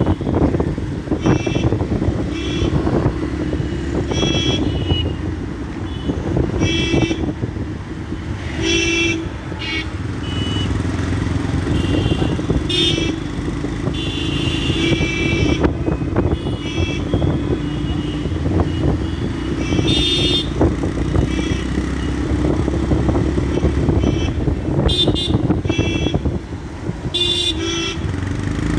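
Yamaha FZ-S single-cylinder motorcycle engine running steadily while ridden through city traffic, with many short vehicle horn toots sounding around it.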